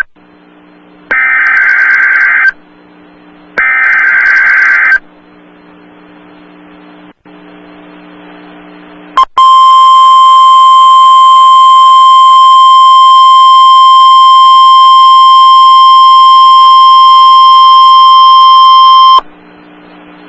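NOAA Weather Radio Emergency Alert System activation announcing a tornado warning. Two screechy digital SAME header bursts, each about a second and a half long and a second apart, come early on. After a few seconds of low hum, the single steady 1050 Hz weather radio warning alarm tone is held for about ten seconds and then cuts off.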